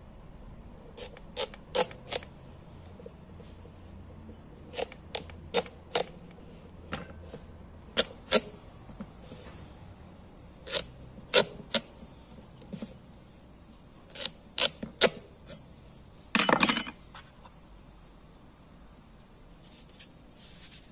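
Kitchen knife cutting slits into the rind of a raw, hollowed-out pumpkin, each cut a sharp crunch. The cuts come in small groups of two to four with pauses between them, and there is one longer scraping crunch about three-quarters of the way through.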